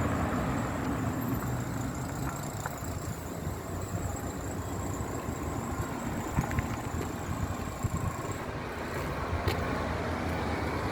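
Street traffic: motor vehicles running and passing, with steady road noise.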